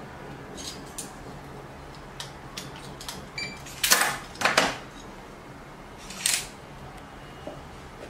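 Hands handling the black plastic lock body and latch of an electronic cabinet lock kit: light clicks, then a few louder short scrapes and knocks about four, four and a half and six seconds in.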